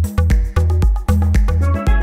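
Background electronic dance music with a heavy bass and a steady beat.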